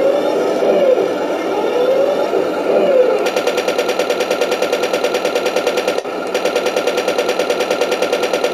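Heng Long RX18 RC tank sound board playing its simulated tank engine, revving up and down twice, then its machine-gun effect firing rapidly over the engine in two long bursts with a short break between them.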